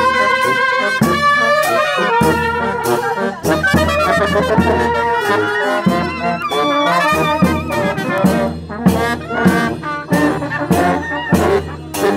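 A brass band of trumpets and larger horns playing a tune with a steady beat.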